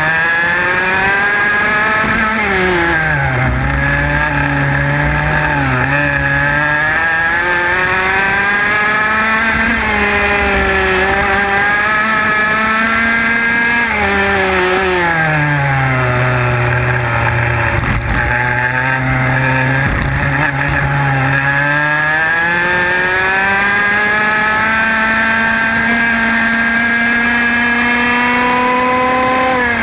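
IAME X30 125cc two-stroke kart engine, recorded on board, running hard through a lap. Its revs climb along the straights and fall away under braking into corners: a sharp drop near the start, a longer low stretch in the middle, then a high steady run that drops again at the end.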